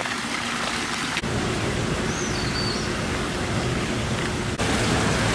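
Steady rushing noise that changes abruptly about a second in and again near the end. A faint short warbling whistle sounds about two seconds in.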